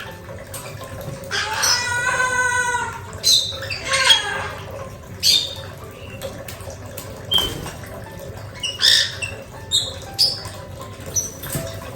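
White-bellied caique calling: a longer squawk about a second and a half in, then a string of short, sharp squawks and chirps.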